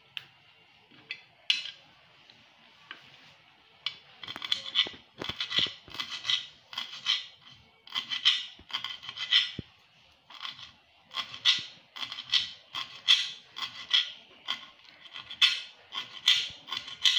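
Knife slicing rolled green leaves on a glass cutting board: a few light taps at first, then from about four seconds in a steady run of short, crisp cutting strokes, roughly one and a half a second, as the blade chops through the leaves onto the glass.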